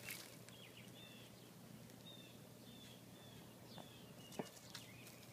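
Near silence with faint, short bird chirps repeating every half second or so, and a sharp click about four seconds in.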